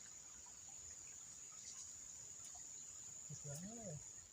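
Steady high-pitched chirring of insects such as crickets, running unbroken, with one short hum-like voice sound about three and a half seconds in.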